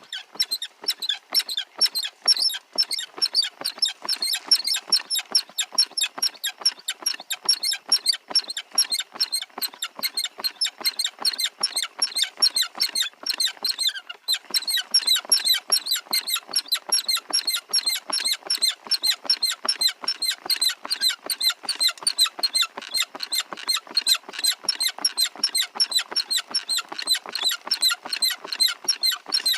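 Small gold-prospecting dry washer running dirt, with a rapid, even rattle of gravel clicking over the tray, several ticks a second and a brief pause about halfway through.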